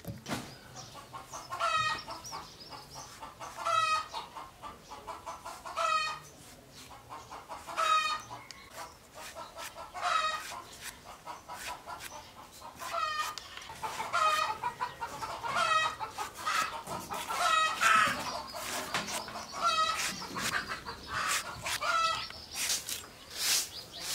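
Chicken clucking: a short call about every two seconds, over a steady patter of small clicks.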